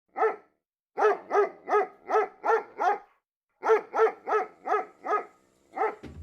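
A dog barking in quick, sharp barks: a single bark, then a run of six at about three a second, a short pause, and another run of five and a last bark. Music with a low beat comes in near the end.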